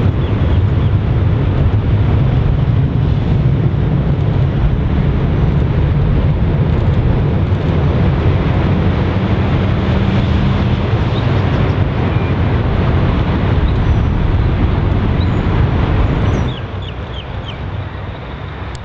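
Ilyushin Il-76's four Soloviev D-30 turbofan engines giving a loud, steady, deep rumble as the aircraft climbs away at take-off power. The rumble drops suddenly to a quieter level near the end.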